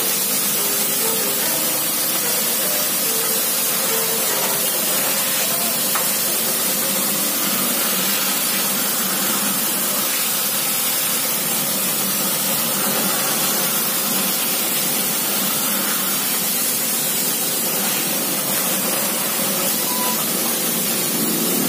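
Pressure washer spraying water in a steady, unbroken hiss.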